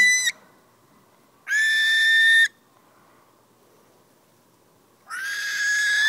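Barn owl screaming while it is handled: three long, high calls of about a second each, held on one pitch, one cut off just after the start, one about a second and a half in, and one beginning near the end.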